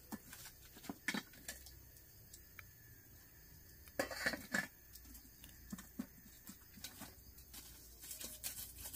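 Wood fire being tended: scattered light clicks and knocks of burning sticks being poked and shifted, with a short cluster of louder knocks about four seconds in.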